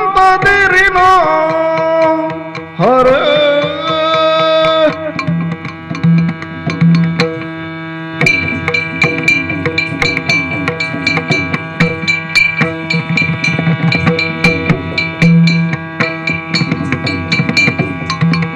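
Yakshagana stage music. A singer holds two sung phrases over a steady drone in the first five seconds. The drone then carries on under quick, rhythmic hand-drum strokes, which grow dense from about eight seconds in as the dance begins.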